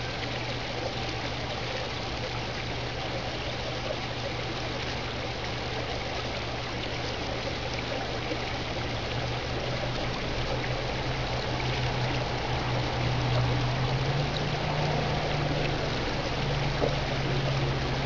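Steady rush of running stream water, played backwards, with a low steady hum underneath that grows louder in the second half.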